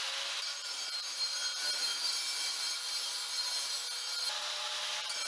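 Electric angle grinder running steadily, its disc grinding burrs off the inside edge of a metal sheet ring. The grinding eases for a moment about four seconds in.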